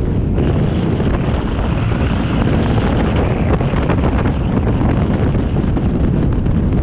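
Wind buffeting the microphone of a moving rider, with road and vehicle noise underneath, loud and steady.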